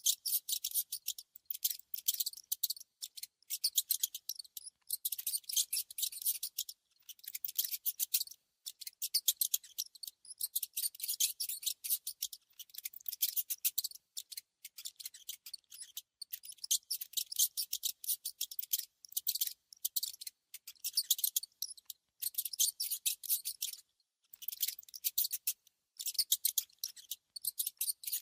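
Mice at close range making rapid, crisp scratching and nibbling clicks, thin and high-pitched, in bursts of a second or two separated by short pauses.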